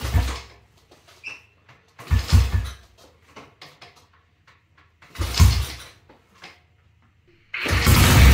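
Single-cylinder engine of a BSA C15 motorcycle being kick-started: three kicks, each spinning it over briefly without firing. Near the end it catches and runs loudly, its first start after more than twenty years laid up.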